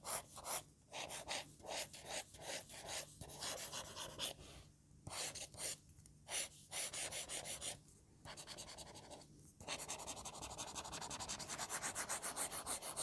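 ONYX BOOX round-shaped stylus nib scratching across the textured screen of a reMarkable 2 e-ink tablet: separate drawing strokes, a few a second, then a fast run of short back-and-forth strokes near the end.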